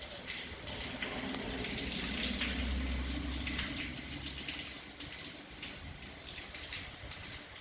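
Steady rain falling and pattering, with a low rumble under it for the first few seconds.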